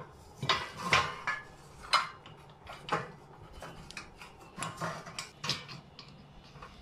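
Small metal parts clinking and tapping against a steel bed frame as a nut, bolt, washers and tools are handled to fit a repair to a broken leg: a series of about ten separate, irregular clinks.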